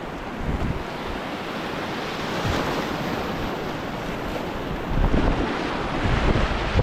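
Whitewater rapid rushing and churning, with wind buffeting the microphone, which gets heavier about five seconds in.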